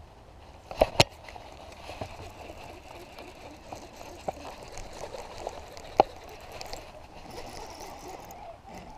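Handling noise from a baitcasting rod and reel worked by hand: scattered sharp clicks and knocks, the loudest two close together about a second in, over soft rustling.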